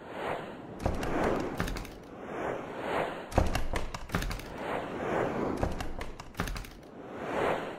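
Slideshow soundtrack of repeated whooshing swells every second or two, with sharp clicks and thumps between them, several with a deep low thud.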